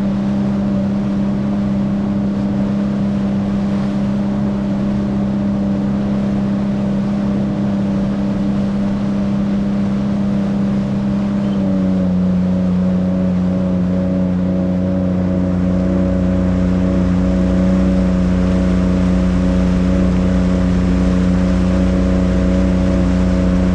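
Jet ski engine running steadily at cruising speed, a constant hum with a rush of noise over it. About halfway through the pitch steps slightly lower while the low rumble grows a little louder.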